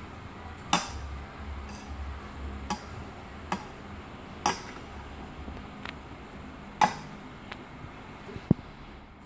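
Metal spoon clinking and scraping against a bowl in slow, irregular clicks, about eight in nine seconds, with a duller knock near the end.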